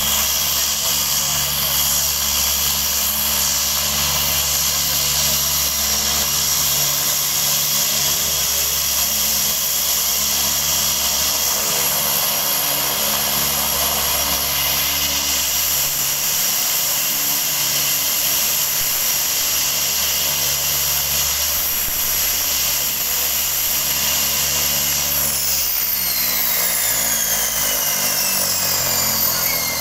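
Cessna 208 Caravan's single Pratt & Whitney PT6A turboprop running at taxi idle, a loud high turbine whine over a pulsing propeller drone. Near the end the engine is shut down and the whine falls steadily in pitch as the turbine spools down.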